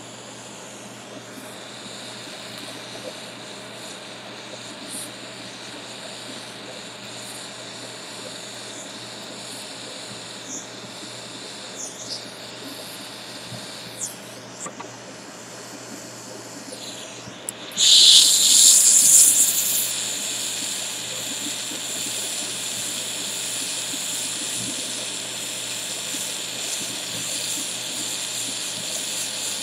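Small handheld jeweler's gas soldering torch hissing, faint at first with a few light clicks. A little past halfway it turns up to a loud rush that settles into a steady, louder hiss as the flame heats a sterling silver prong for soldering.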